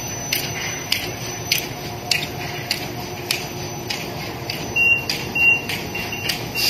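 Bubble bag making machine running, its cutting and sealing head clacking in a steady rhythm a little under twice a second over a low machine hum. From about the middle on, a series of short high electronic beeps repeats about twice a second.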